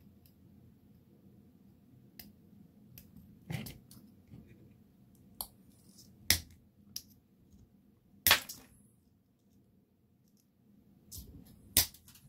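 Side cutters snipping coils off a 3D-printed silk PLA spring to shorten it: a handful of sharp plastic snaps spread out, the loudest about eight seconds in.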